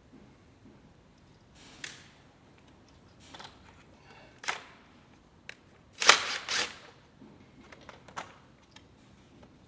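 Scattered clicks and short scraping sounds of hand tools and plastic parts being handled, with the loudest cluster about six seconds in.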